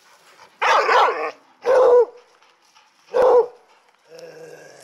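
Dog barking three times, loud separate barks about a second apart.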